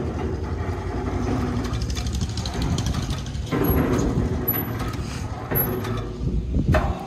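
A large engine running steadily with an even low pulse, with a few short high squeaks and a sharp knock near the end.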